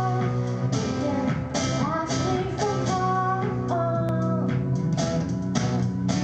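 A pop-rock song: a female voice singing over guitar, bass and drums keeping a steady beat.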